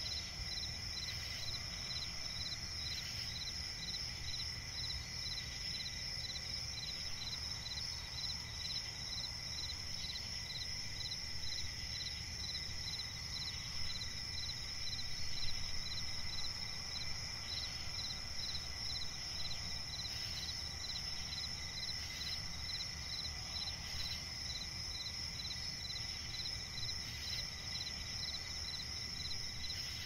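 Crickets chirping in a night-time swamp ambience: steady high trills with a regular pulsed chirp repeating a few times a second, over a low rumble.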